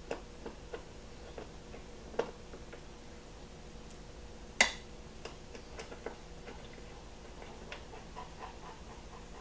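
A wrench working the bolts off a dirt bike's seat: scattered small clicks and ticks of tool on bolt, with one sharp clink about four and a half seconds in.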